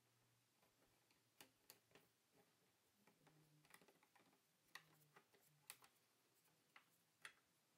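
Faint, scattered clicks and ticks of a laptop's LCD panel and display frame being handled, about a dozen small sharp sounds spread irregularly over a quiet background.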